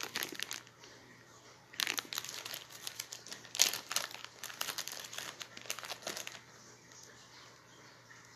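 Packaging crinkling and crackling as a small wax melt loaf in a foil pan is unwrapped by hand: a short burst at the start, then a longer stretch of crinkling from about two seconds in until past six seconds.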